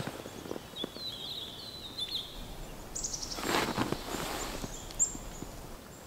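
Pine grosbeaks giving a few short, high whistled calls in the first two seconds. A brief rustling noise follows about three and a half seconds in, then a single sharp click about five seconds in.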